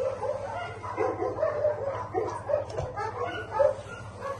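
Dogs barking and yelping over and over, with short calls following each other about two or three times a second.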